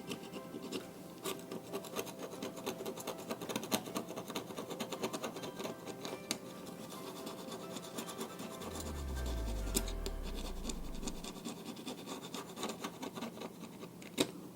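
Repeated irregular scratching and scraping as corrosion is scraped off the inside of a remote control. About two-thirds of the way through, a low hum falls in pitch.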